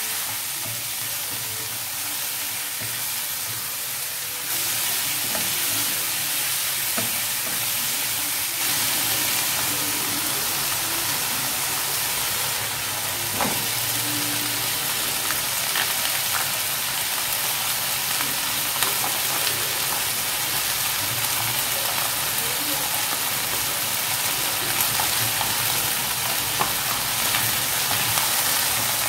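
Chicken pieces sizzling as they fry in a hot wok, turned now and then with a wooden spatula that gives small scraping clicks against the pan. The sizzle is steady and gets louder about four seconds in.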